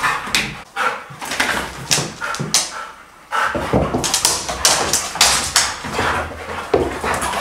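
A Hungarian vizsla and a pointer play-fighting, giving a quick run of short dog vocalisations, with a brief pause about three seconds in.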